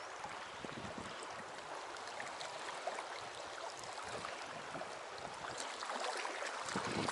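Shallow river water flowing steadily around the legs of someone standing in it, with small splashes and trickles throughout.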